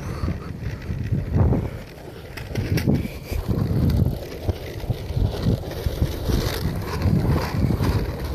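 RipStik caster board's wheels rolling fast on a concrete parking-garage deck: a low rumble that rises and falls irregularly, with wind buffeting the microphone.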